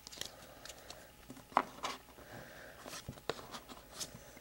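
Trading cards being handled and flipped through one by one, faint soft slides and scattered light clicks, two sharper ticks about a second and a half in and again after three seconds.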